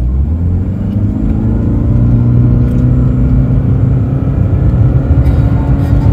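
Toyota Prius 1.8-litre four-cylinder petrol engine (a fourth-generation engine swapped into a third-generation car) at full-throttle acceleration from a near standstill, heard from inside the cabin. The engine note climbs in pitch over the first second or so, then holds at high revs with a steady low rumble while the car gathers speed.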